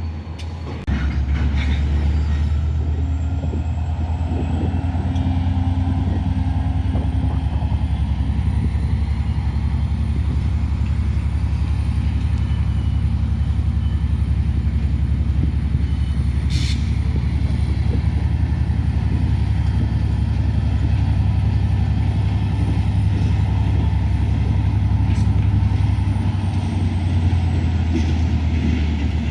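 Diesel-electric freight locomotive running close by: a loud, steady low rumble that starts about a second in, with a faint high whine above it.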